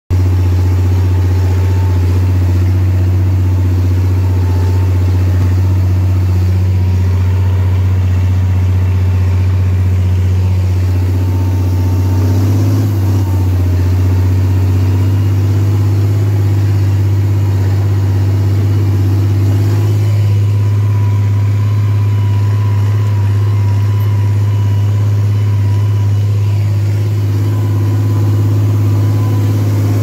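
Lamborghini 1506 tractor's diesel engine running steadily under load while ploughing soft ground, heard from inside the cab, with a small rise in pitch about two-thirds of the way through.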